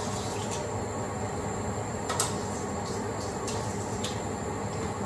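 Steady hum and hiss of a kitchen range hood fan over a simmering pan, with a few faint clicks and rustles as shredded cabbage is handled in a stainless steel colander.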